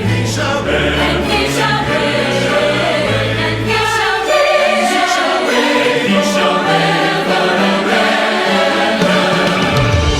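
Large choir singing with an orchestra, a Christmas medley, in sustained notes; the low bass part drops out for several seconds in the middle and comes back near the end.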